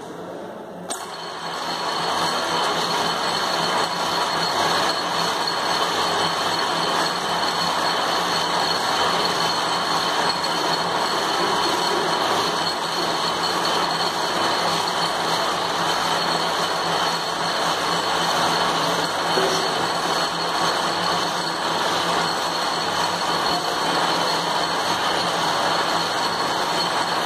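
Lathe running and machining a long shaft: a steady mechanical noise with a constant high whine, starting with a click about a second in.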